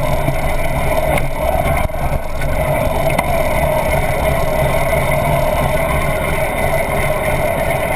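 Motorcycle engine running at low speed with a steady, pulsing low throb as the bike rolls up to a garage and stops.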